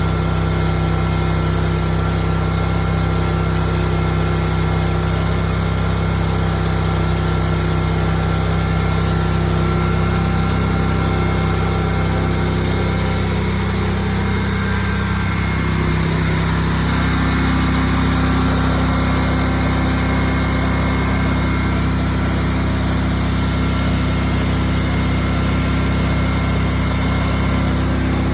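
Riding lawn mower engine running steadily, its pitch shifting slightly about halfway through.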